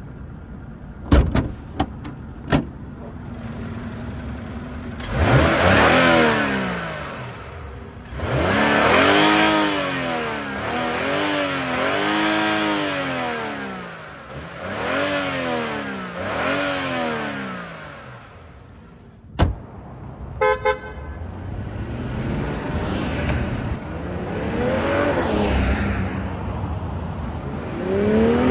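2021 BMW X6's 3.0-litre twin-turbo inline-six engine blipped repeatedly, its pitch rising and falling with each rev, after a few sharp clicks near the start. About two-thirds in there is a sharp knock, then two short horn toots, and the engine then pulls away with a rising pitch.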